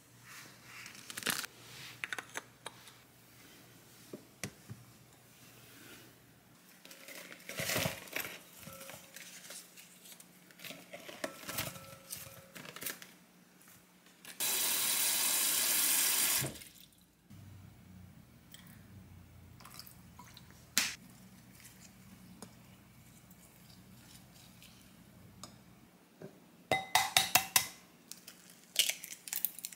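Kitchen prep sounds: strawberries tumbling and knocking into a glass bowl, then a tap running for about two seconds midway. Near the end comes a quick series of sharp, ringing clinks on a glass bowl.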